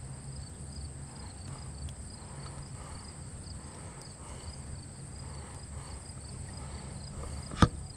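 Outdoor summer ambience: insects chirring steadily at a high pitch over a low steady hum, with one sharp click near the end.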